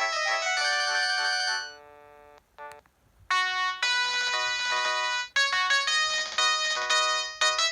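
Preloaded polyphonic ringtones on a Samsung SCH-N356 mobile phone: one electronic melody stops about two seconds in, a short beep follows, and after a brief pause a different, quicker ringtone melody starts and plays on.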